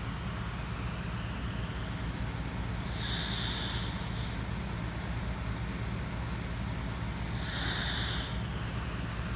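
Corgi snoring in its sleep: two breathy snores about four seconds apart, each lasting a little over a second, over a steady low hum.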